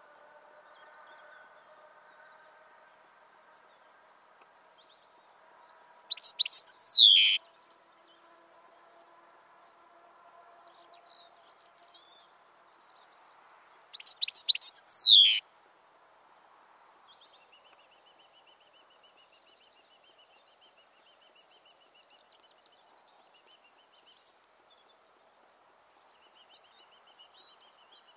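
European goldfinch singing two short phrases about eight seconds apart. Each is a quick run of high notes ending in a long falling note. Faint chirps from other birds follow.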